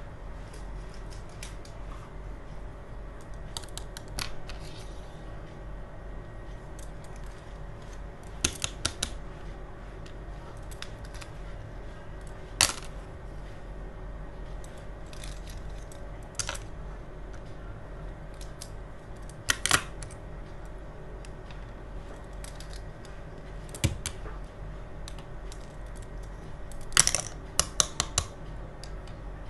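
Hard plastic toy doctor-kit pieces (toy scissors, forceps and pliers) being set down one at a time on a table, giving sharp plastic clacks a few seconds apart, with a quick cluster of several near the end. A steady low hum sits underneath.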